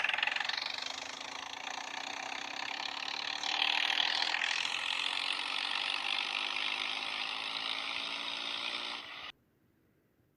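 A vehicle engine running with a fast mechanical rattle, its pitch rising slowly, then cutting off suddenly near the end.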